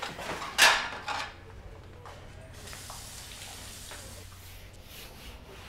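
Kitchen sounds: a loud short hiss under a second in, then a few light clinks and a steady soft hiss for a few seconds.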